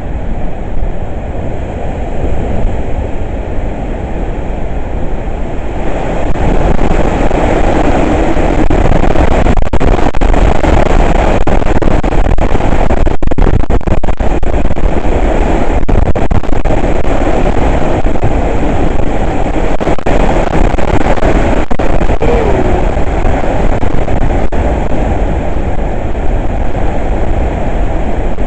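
Hurricane wind blowing hard, a loud continuous rush that grows stronger about six seconds in and stays up in heavy gusts.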